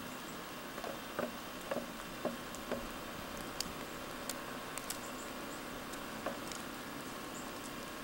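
Footsteps in snow, about five steps half a second apart, then a few scattered faint ticks, over a steady hiss.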